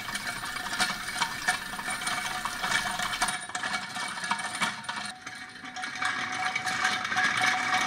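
Restored 1922 Dazey butter churn being hand-cranked: its metal gears whir and click steadily as the wooden paddle spins in the empty glass jar.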